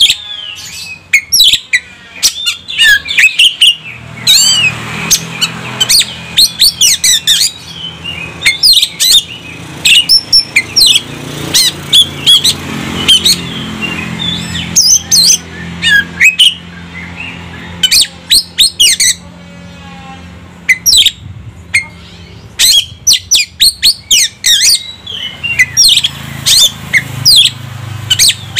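Oriental magpie-robin (kacer) singing: a loud, varied stream of sharp whistled notes and quick phrases, broken by harsh rattling chatter near the start and about 20 s in. A low engine hum runs faintly underneath from a few seconds in.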